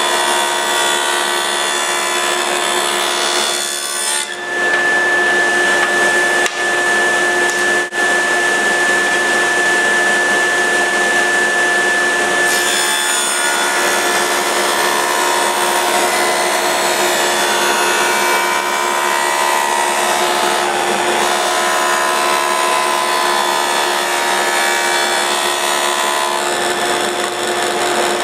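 A power woodworking tool running steadily as it cuts wood, with a brief dip about four seconds in. A high steady whine joins it from about four to twelve seconds in.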